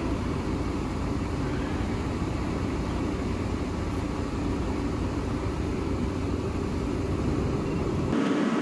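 Steady deep rumble of fire apparatus engines running, as when pumping water for hose streams. Near the end the lowest part of the rumble drops away abruptly.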